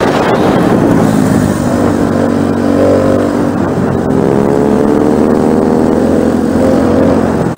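Motorcycle engine running under way, heard from on board over a steady rush of wind and road noise; the engine note rises and falls gently as the speed changes.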